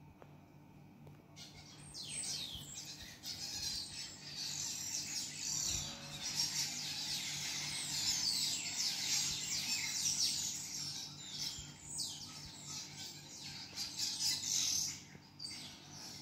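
A flock of birds chirping: many overlapping high, quickly falling calls that start about a second and a half in, build up, and die away near the end.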